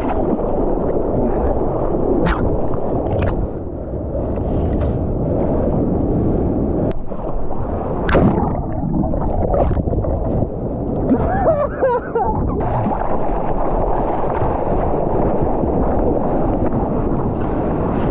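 Sea water rushing and splashing over a bodyboard, heard from an action camera mounted on the board, with a few sharp splash hits. Near the middle the camera goes through the wave and the water turns to a bubbling gurgle, then the sound becomes brighter and hissier as spray and wind hit the microphone.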